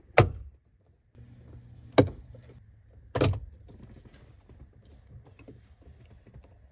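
Plastic door-handle trim piece on a Lexus IS 300 door panel being pried off with a plastic pry tool: three sharp snaps as its clips pop loose, one just after the start and the others about two and three seconds in, then faint rattling as it is worked free by hand.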